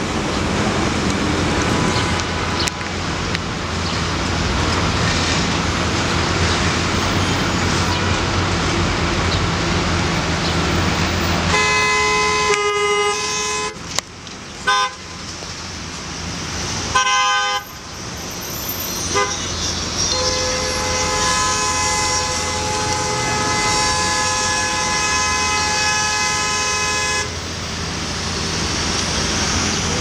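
Street traffic running, with a vehicle horn sounding: a held blast about twelve seconds in, two short toots a few seconds later, then one long blast of about seven seconds.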